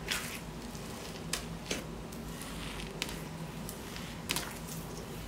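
A hand squeezing and pressing into a large mass of clear slime packed with glitter, making wet squishing with about five sharp sticky pops. The loudest pops come just at the start and about four seconds in.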